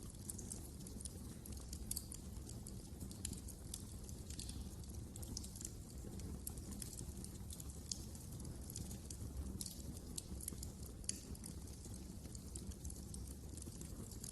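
Fire in a fireplace crackling, with frequent irregular sharp pops and snaps over a steady low rumble of the flames.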